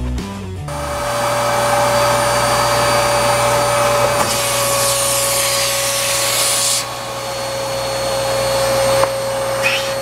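Vacuum cleaner running with a flexible pipe taped to its hose, sucking loosened mineral scale out of the bottom of an electric water heater tank. It makes a steady hum, with a brighter hiss for a few seconds in the middle.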